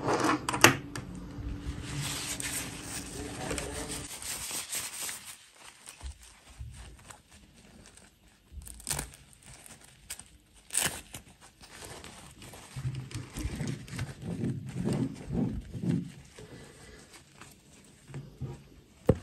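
Hands handling a plastic fashion doll and its fabric dress: cloth rustling and crinkling, broken by scattered sharp clicks and taps.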